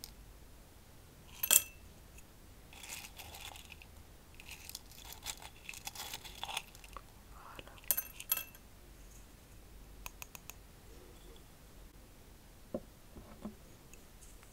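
Cardamom pods and other whole spices rattling against a small glass jar as a wooden spoon scoops them, then dropping into a ceramic teacup. Scattered light clicks and rustles, the sharpest about a second and a half in and two more near eight seconds.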